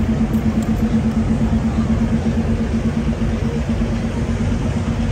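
An engine running steadily at a constant speed: a steady droning hum with a slight regular pulse.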